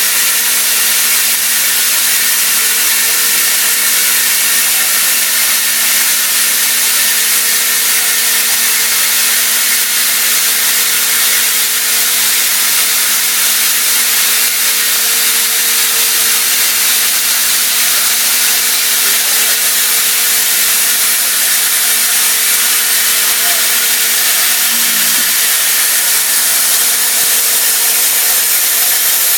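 CNC mill cutting AlSiC metal-matrix composite with a CVD diamond end mill under coolant: a steady hiss of cutting and coolant spray over a steady hum.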